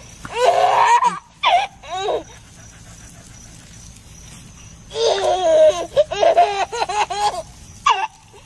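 Toddler laughing heartily in bursts: a peal in the first second, a couple of short giggles, then a long run of repeated laughs from about five seconds in.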